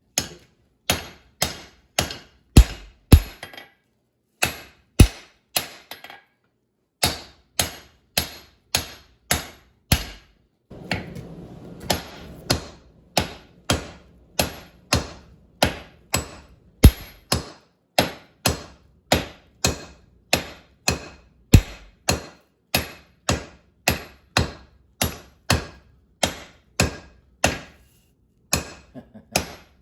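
Hand hammer blows on hot steel at the anvil, forging down the bar for a hammer eye drift: sharp ringing strikes about two a second, with a couple of short pauses and a brief rush of steady noise near the middle.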